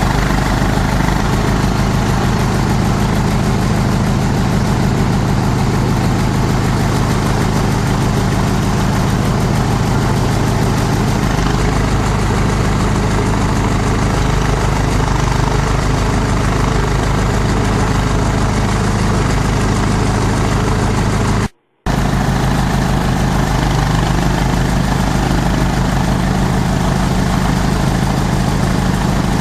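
Multi-purpose chopper-shredder machine running steadily, a loud continuous mechanical drone with a deep hum. It cuts out for a split second about two-thirds of the way through.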